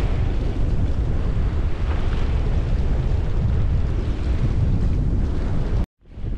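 Steady wind buffeting the microphone over the rush of water along a sailing yacht's hull, with a brief drop to silence near the end.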